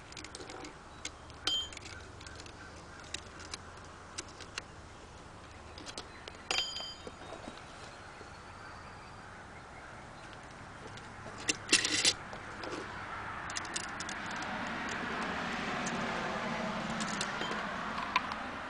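Small metal parts of a knife sharpener's clamp clicking and clinking as they are handled and adjusted, some clicks ringing briefly, with a louder metal clatter about twelve seconds in. Over the last five seconds a steady noise swells and fades beneath the clicks.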